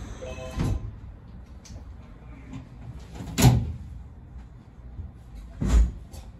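Three dull clunks about two and a half seconds apart aboard a Semboku 9300-series commuter train, the middle one the loudest.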